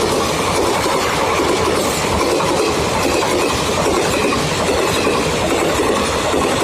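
Indian Railways train passing at full speed: a loud, steady rush of wheels running over the rails as the coaches go by.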